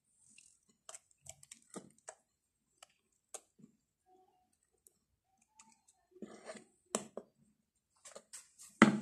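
Spatula scraping and tapping against a glass mixing bowl as thick muffin batter is scooped into a plastic measuring jug: scattered light clicks and soft scrapes, with a louder knock near the end.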